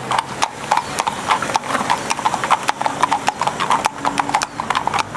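Hooves of several horses walking on asphalt: an overlapping, uneven clip-clop with several strikes a second.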